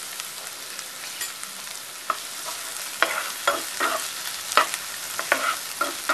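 Chopped onions sizzling in hot oil in a frying pan, with a spatula scraping and stirring them in irregular strokes from about two seconds in.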